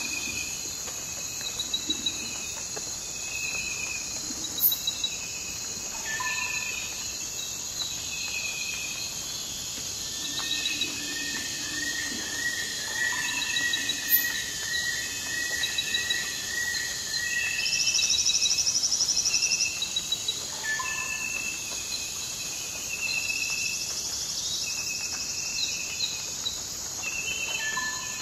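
Rainforest ambience after rain: a steady high-pitched chorus of insects with repeated short chirping trills over it. A run of evenly spaced calls comes in about a third of the way through, and a louder buzzing trill starts twice in the last third.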